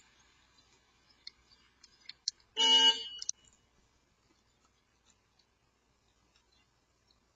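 A car horn honks once, briefly and loudly, about two and a half seconds in. Faint scattered ticks and clicks come before and after it.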